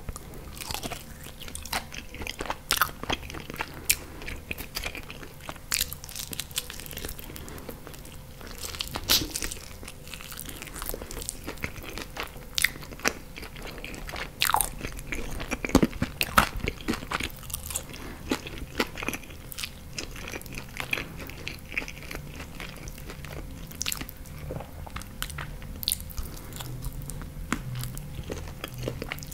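Close-miked biting and chewing of sauced chicken wings: wet mouth sounds with sharp, irregular crunches and snaps as meat is pulled from the bone.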